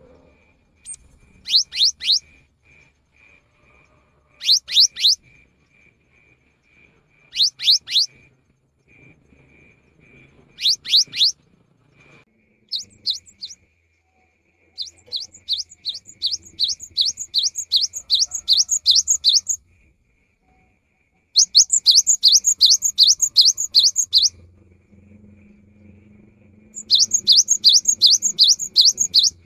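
Cinereous tit (gelatik batu) singing. First come short bursts of three quick falling whistles about every three seconds. In the second half come longer runs of rapid repeated notes, about four a second, each run lasting three to four seconds.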